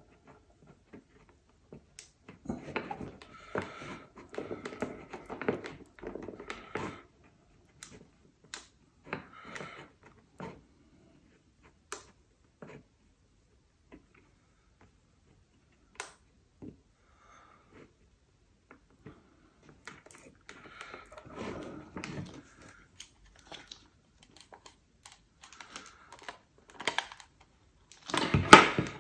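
Small parts and tools being handled while the metal detector's control-knob housing is worked on: irregular clicks, taps and light rattles of plastic and metal, in short busy spells with gaps between them and the loudest clatter near the end.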